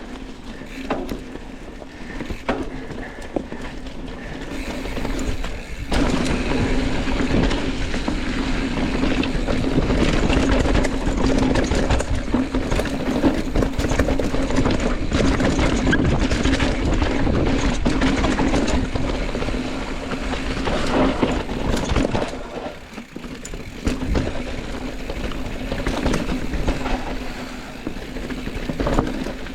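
Mountain bike riding fast down a rough dirt trail: rushing wind noise with a steady hum, and many rattles and knocks as the bike hits bumps. The noise eases briefly about two-thirds of the way through.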